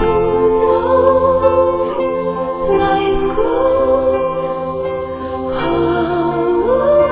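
Background music of long held notes with a singing voice carrying a gliding melody over them.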